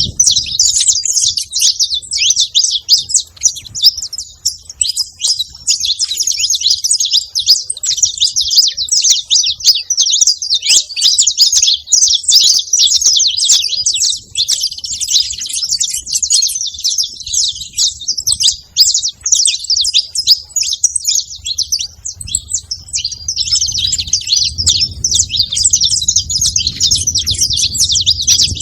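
Saffron finches, a male and a female, chirping and singing together in a dense, unbroken stream of rapid high notes.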